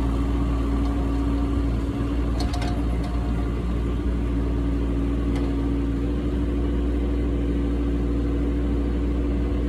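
Kubota K008-3 mini excavator's three-cylinder diesel running steadily as the machine travels in reverse on its rubber tracks, with a constant engine hum and low rumble.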